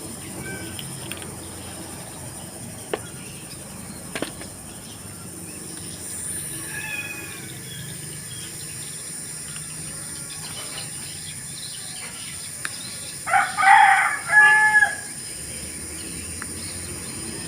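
A rooster crowing once, about three-quarters of the way in, in a few pitched parts ending on a held note. This is the loudest sound, over a low steady background with a few faint bird chirps.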